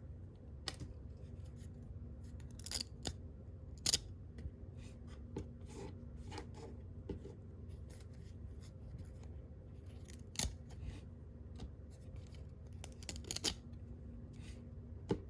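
Stiff cardboard baseball cards being thumbed through by hand, sliding and snapping against each other in irregular short clicks.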